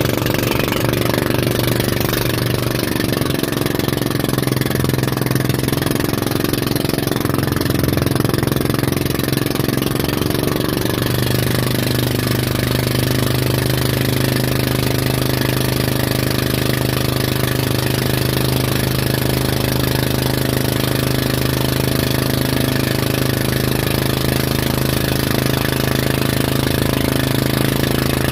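Motorboat engine running steadily at speed while towing, its note shifting a little twice in the first half, over the hiss of rushing water and wind.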